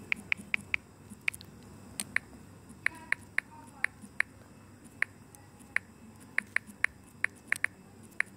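Key-press clicks from an Android phone's on-screen keyboard as a name is typed: short, sharp, irregular ticks, roughly three a second.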